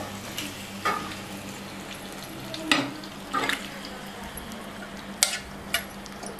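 Marinated chicken pieces sliding from a steel bowl into a pan of hot oil and sizzling, with several sharp clinks of the steel bowl against the pan as it is scraped out.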